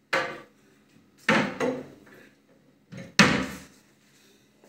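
Three sharp knocks and clatters of kitchen items being handled, about a second and a half apart.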